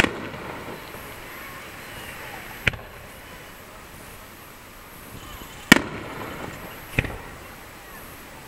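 Aerial firework shells bursting in the sky. Four sharp bangs, the first and third loudest, each trailing off in a short echo.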